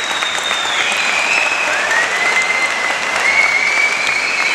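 Audience applauding after a song, a dense steady clatter of clapping, with long high whistles that hold and slide in pitch above it.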